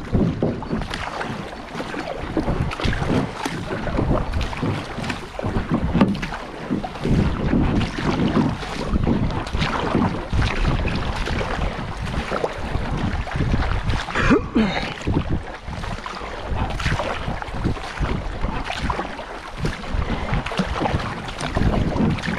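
Fast river current rushing and splashing around a small whitewater paddle boat, with irregular sharp splashes and wind buffeting the microphone.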